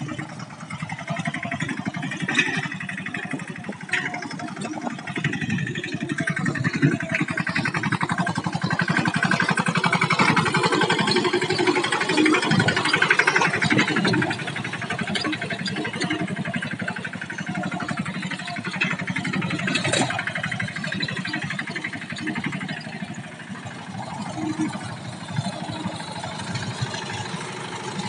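Mahindra mini tractor's diesel engine running steadily under load while pulling a spring-tine cultivator through dry soil, louder in the middle. There is one sharp knock about twenty seconds in.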